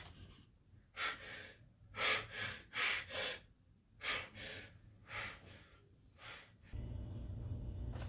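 A man breathing hard in a series of sharp, gasping breaths, about eight in six seconds, as if waking with a start. Near the end they stop and a steady low hum of room tone takes over.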